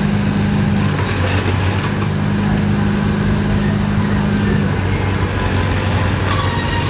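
Engine-driven power unit of a giant hydraulic robotic arm running with a steady drone, its note changing about a second in and again near the end as the arm's claw is raised.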